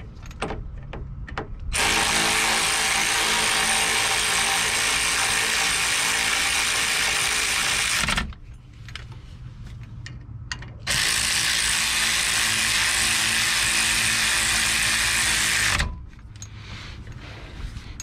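Cordless electric ratchet driving the brake caliper bolts home: two long steady runs of about six and five seconds with a pause between, after a few light clicks as the tool is fitted to the bolt.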